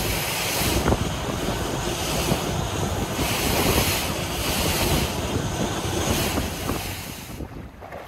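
Wind buffeting the microphone over the rush of water along the hull of a motorboat running across choppy sea. The wind noise comes in gusts and drops away sharply near the end.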